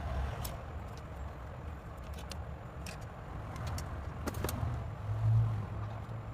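A steady low rumble that swells briefly about five seconds in, with a few light clicks scattered through it.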